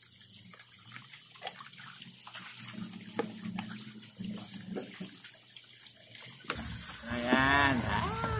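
Water poured from a plastic pitcher over a man and a puppy, splashing and streaming down into a tub, with scattered small splashes. Near the end a man laughs out loud.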